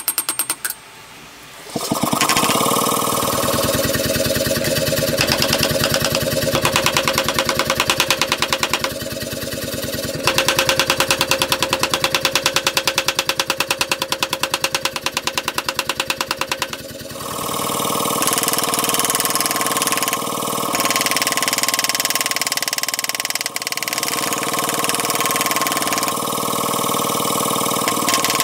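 A machine running with a fast, even pounding rhythm, starting about two seconds in and changing its tone around ten and again around seventeen seconds in.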